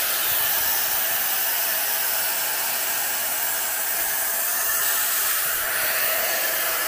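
Laser air assist blowing compressed air through its nozzle, a steady hiss that cuts off suddenly near the end.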